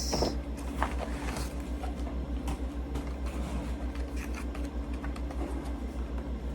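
Faint rustling and small clicks of a cardboard package being opened and handled, over a steady low hum.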